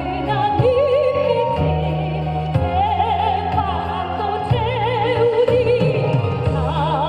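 Live singing with wide vibrato on long held notes, over a steady backing track with bass.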